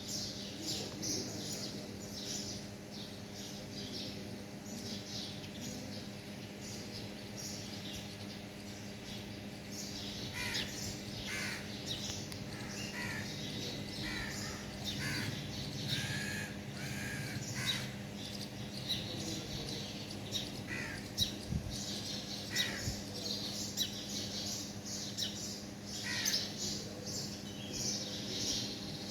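Many birds chirping and calling in short, repeated notes, with lower calls joining in from about ten seconds in. A steady low hum runs underneath.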